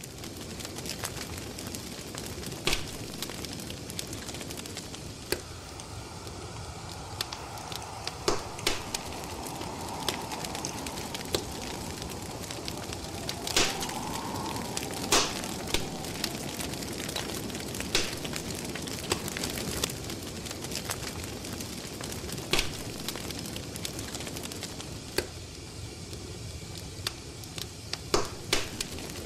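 Wood fire crackling, a steady hiss broken by sharp pops every second or two, the loudest two about halfway through.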